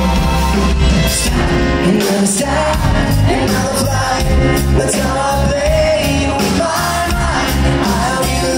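Live rock band playing loud: a male singer's vocal over electric guitar and drums, with a sung line held for a couple of seconds near the middle.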